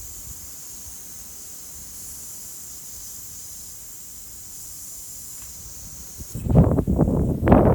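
Compressed air hissing steadily into a car tire through an inflator, refilling it to test a freshly plugged puncture. About six seconds in the hiss stops and a much louder, irregular noise takes over.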